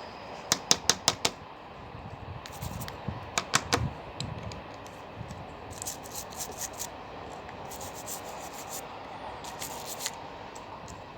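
Vacuum cleaner's push-button power switch clicked repeatedly: a quick run of four sharp clicks, then three more a few seconds later, then lighter irregular clicking, as cleaner is worked into the switch. The switch is faulty and fails to turn the vacuum off.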